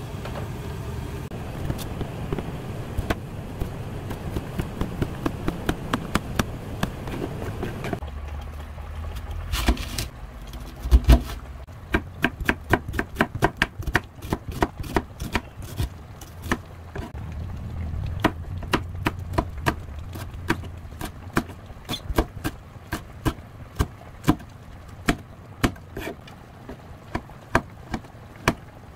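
For the first several seconds, seaweed soup simmers and bubbles steadily in a pan on a gas burner, with a few light clicks as a spoon stirs it. Then a kitchen knife chops onion, green chili and garlic on a plastic cutting board: sharp knocks at a brisk, even pace, with a couple of heavier thumps about ten seconds in.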